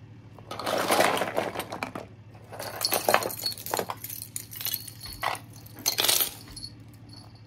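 Hands rummaging through a heap of small plastic toys: clattering and clinking in several irregular bursts, loudest about a second in and again around three and six seconds in.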